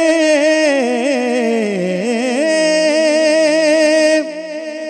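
A naat singer drawing out one long melismatic note with vibrato, sliding down in pitch and back up, over a steady held tone underneath; the note ends a little after four seconds.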